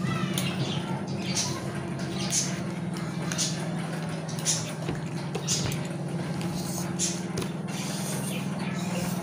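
Close-miked eating sounds: noodles and seafood being chewed and slurped, with wet mouth smacks about once a second over a steady low hum.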